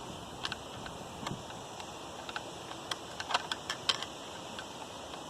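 Scattered light clicks and taps of a screwdriver and small metal parts being handled while the wiring harness is fastened on a garbage disposal, a few early and a quick cluster past the middle.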